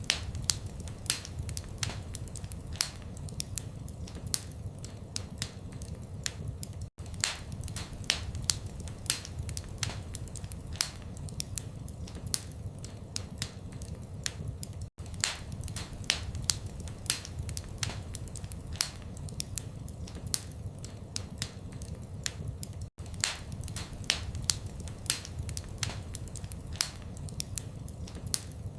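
Wood fire crackling in a fireplace: frequent sharp pops and snaps over a low, steady rumble of burning. The sound drops out for an instant about every eight seconds.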